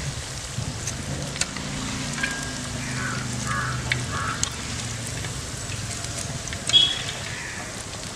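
Hot oil sizzling in a large aluminium pan as crisp-fried battered beef pieces are scooped out with a metal spoon, with repeated sharp clinks of the spoon against the pan and strainer, the loudest near the end.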